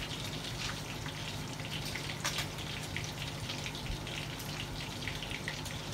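Faint light clicks and scrapes of a metal fork against a ceramic plate as a bite of soft bread is cut and lifted, over a steady background hiss and low hum.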